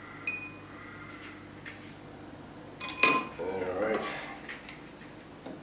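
Dishes being handled: a light clink with a brief ring, then a louder clink about three seconds in, followed by about a second of wavering, scraping sound.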